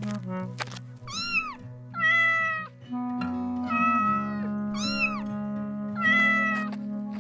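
Cat meowing about five times over steady background music. Short calls that rise and fall alternate with longer, more level ones.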